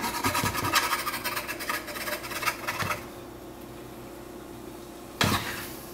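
Wooden spatula scraping and chopping ground beef in a nonstick skillet, quick strokes for about three seconds before stopping, with one more short scrape near the end.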